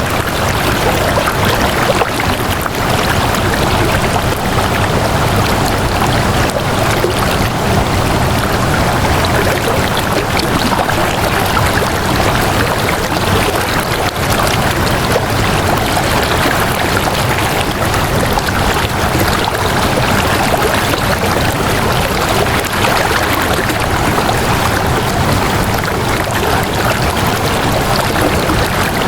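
Flowing water: a steady, loud, even rush like a stream running over rocks, with no change throughout.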